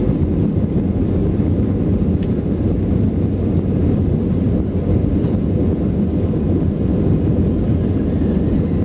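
Airbus A320 cabin noise on the take-off roll: the jet engines and the wheels on the runway making a steady, loud, deep rumble.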